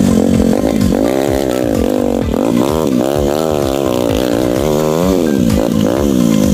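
Small motorcycle engine revving up and down over and over, its pitch rising and falling several times a second as the throttle is worked to get the heavily loaded bike over rough, rocky ground.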